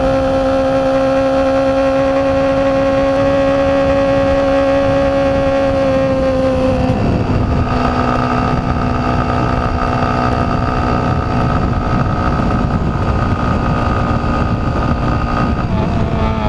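A 125 cc single-cylinder motorcycle engine running at high, steady revs at full throttle, with heavy wind and road noise. About seven seconds in, the engine note drops and changes abruptly, then holds steady again.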